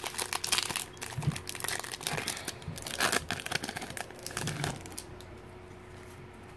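Crinkling of a Pokémon trading card booster pack's foil wrapper as hands tear it open and handle it, in quick crackles that stop about five seconds in.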